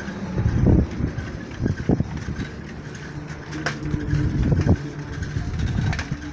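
Truck engine idling with a steady low hum, with scattered low thumps over it.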